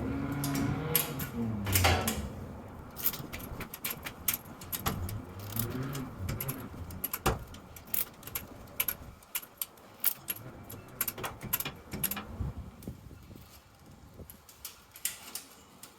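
Exhaust and tailpipe cutter being worked back and forth around a steel exhaust pipe: an irregular string of sharp metallic clicks and scrapes from the cutter's handle and wheels as they cut into the pipe.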